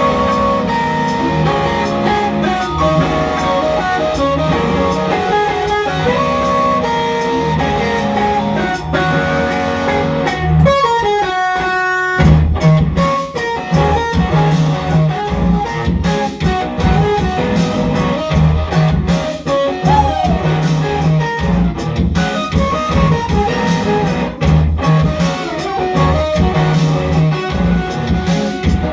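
Electric guitar played live through effects, with held, ringing notes. About ten seconds in, a falling, glitchy sweep cuts across the sound, and after it a loud, repeating low bass part runs under the guitar.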